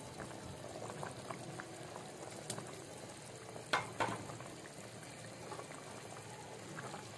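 A pan of mug dal (moong lentils) with meat bubbling steadily at a boil, with two sharp clicks about halfway through.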